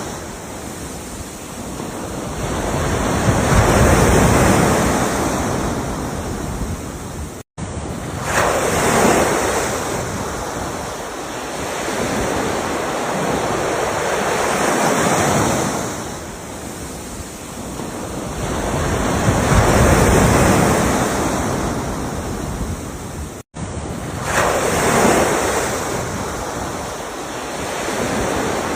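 Ocean waves breaking and washing up the shore, a swell of surf about every five to six seconds. Twice the sound drops out for an instant, about a quarter of the way in and again near the end.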